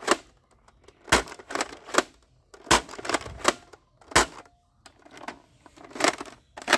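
Irregular sharp plastic clicks and clacks from toy guns being handled, about a dozen in all, with a lull a little past the middle.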